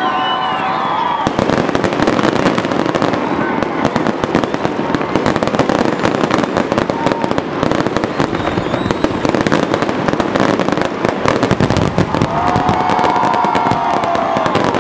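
Fireworks display of aerial shells and ground fountains: a dense, continuous crackling and popping of many small reports, which thickens about a second in.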